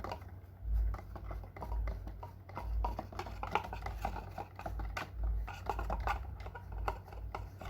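Camera packaging being handled and pulled at: irregular small clicks and crinkles with low thumps, as a GoPro camera stuck fast in its wrapping is worked loose.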